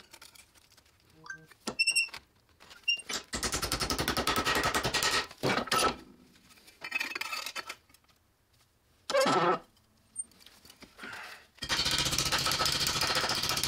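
Hammer rapidly striking a sheet-steel flange clamped in a bench vise, folding it over: two runs of quick, even blows lasting a couple of seconds each, about three seconds in and again near the end, with a few single metallic clinks and a short ringing ping between them.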